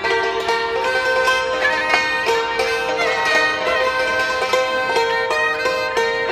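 Thai classical duet: a khim hammered dulcimer struck with mallets in quick, ringing notes, under a two-string saw fiddle bowing a sustained, sliding melody.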